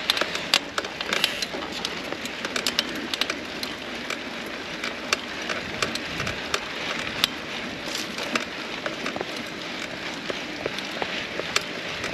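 Mountain bike tyres rolling over a sandy dirt trail: a steady hiss with many small, irregular clicks and crackles of grit and pebbles.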